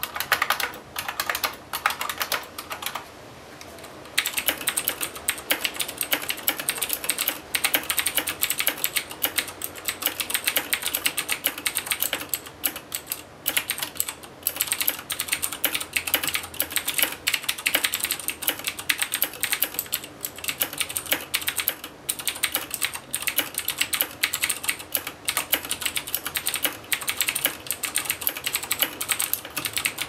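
Steady fast typing on mechanical keyboards: first a Unicomp Classic 104's buckling-spring keys, then, after a brief pause about three seconds in, a Razer BlackWidow Ultimate's Cherry MX Blue clicky switches for the rest. A dense stream of sharp key clicks.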